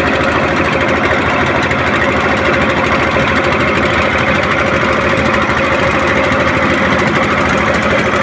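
A small engine running steadily at an even speed, with a fast, even pulse.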